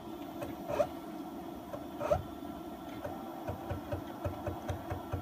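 Z-axis stepper motor of a CNC-converted X2 mini mill jogging the head in small increments during a backlash check. There are two short whirring moves about one and two seconds in, then a quicker run of short, evenly spaced steps near the end, over a steady low hum.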